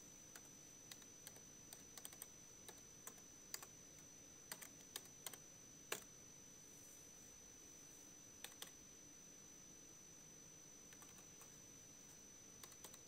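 Faint keystrokes on a computer keyboard: a run of typing for about six seconds, a pause, then a couple of keys and a few more scattered keystrokes near the end.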